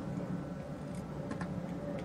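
Steady low hum with a couple of faint, light clicks about a second in, from fingers handling the shaft and fine wires of a small electromechanical display assembly.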